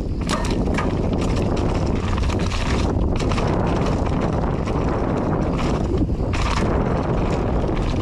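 Downhill mountain bike descending a dirt trail at speed: a steady rush of wind on the microphone over tyre noise, with frequent knocks and rattles from the bike over rough ground.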